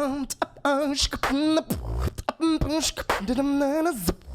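Beatboxing: sharp percussive mouth hits and clicks alternating with held pitched vocal notes that waver slightly.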